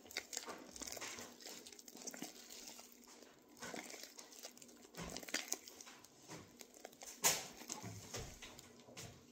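Fluffy shaving-cream slime being worked by hand: irregular squishing, crackling and small popping sounds, with one sharper pop about seven seconds in.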